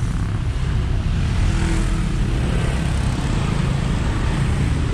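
Motorcycle engines running at low speed in dense, slow-moving traffic, a steady low rumble with no single event standing out.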